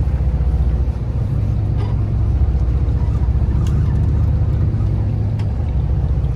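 Steady low rumble of a boat's engine running at idle, with a few faint clicks over it.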